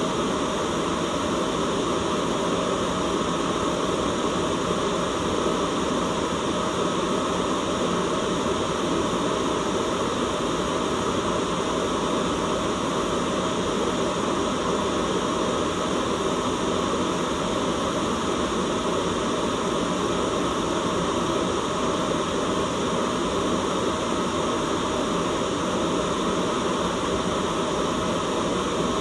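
Steady white noise: a constant, unchanging hiss, fuller in the low and middle range than in the highs.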